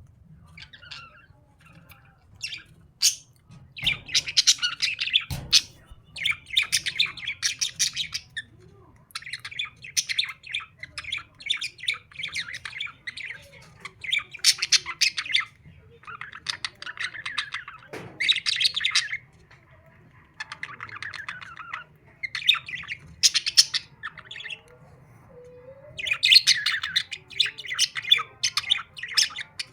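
Pet parrots chattering and squawking in repeated bursts of a second or two, with short pauses between them.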